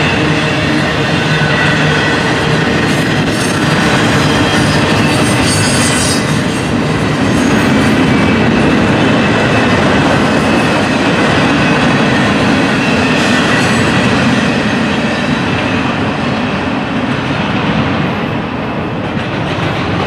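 Double-stack intermodal container well cars of a freight train rolling past: a steady, loud rumble and clatter of steel wheels on rail.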